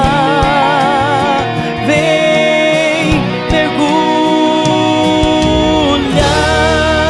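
Brazilian gospel song: a voice holding long sung notes with vibrato over instrumental backing, with a fuller bass coming in about six seconds in.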